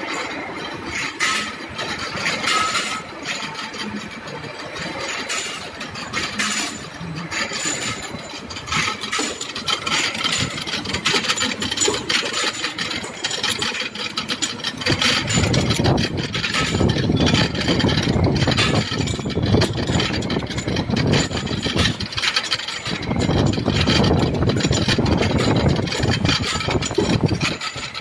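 Vertical duplex surface grinder running while grinding bearing faces: a loud, steady machine noise with scattered clicks. About halfway through a heavier low rumble comes in, drops away briefly, then returns until just before the end.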